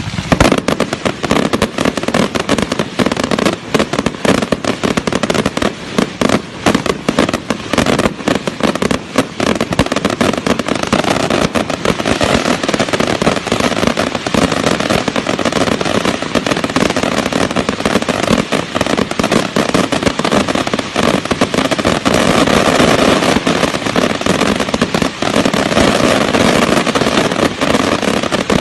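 Fireworks display going off in rapid, continuous succession: dense bangs and crackling without a break.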